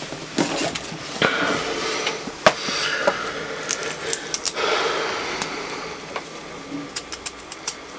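A potato being peeled with a small kitchen knife: scraping strokes of the blade through the skin, with small sharp clicks, and a quick run of clicks near the end.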